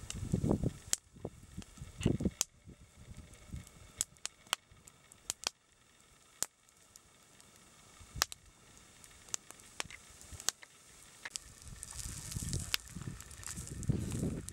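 Wood campfire crackling: charred logs popping with scattered sharp snaps, a dozen or so. A low rumble comes and goes near the start and builds toward the end.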